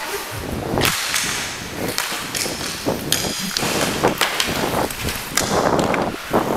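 Inline hockey skates striding fast across an indoor rink floor, with sharp strokes about twice a second over a steady rolling noise.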